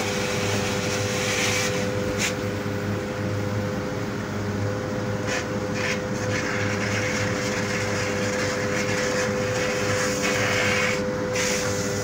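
Vacuum suction tanker's pump running with a steady hum while a thick suction hose draws greasy sludge out of a septic tank. The hose intake hisses, fading after about two seconds and coming back strongly near the end.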